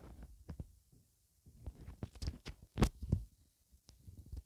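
Marker pen writing on paper: a series of short taps and scratchy strokes, bunched between about one and a half and three seconds in.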